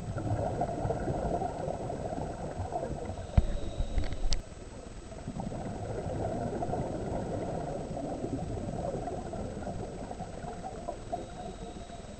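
Scuba regulator exhaust bubbles heard underwater through a camera housing: two long runs of bubbling from exhaled air, the first about four seconds and the second about five, with a short lull between. A few low knocks and a sharp click come about four seconds in.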